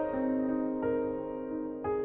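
Background music: a soft piano-like keyboard melody, moving to a new note about three times.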